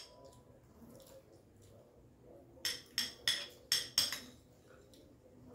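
Metal spoon clinking against a glass plate while food is scooped up: one click at the start, then a quick run of about six clinks around the middle.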